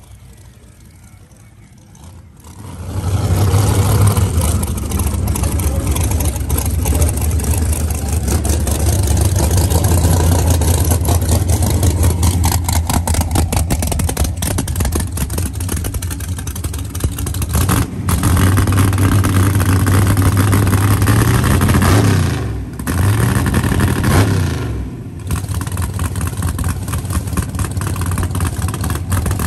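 Big-block V8 in a Camaro drag car fires up about two seconds in and runs at a loud, rough idle. Near the end it is blipped twice, the pitch rising and falling each time.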